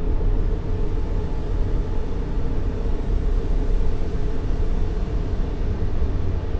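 Steady baby-sleep white noise: an even, unbroken hiss weighted heavily toward the bass, meant to mimic the sounds of the womb.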